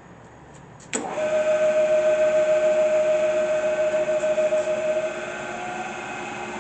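Acer Ultima 3VK milling head, switched to low range (back gear), starting up with a click about a second in and then running with a loud, steady whine of several tones. About four seconds later the whine drops in level and a higher tone begins to rise as the spindle speed changes.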